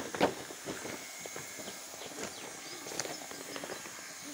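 Irregular knocks and crinkles from a heavy black plastic dam liner being handled and knelt on, with one louder knock just after the start. A steady faint hiss runs underneath, from a hot-air welding gun.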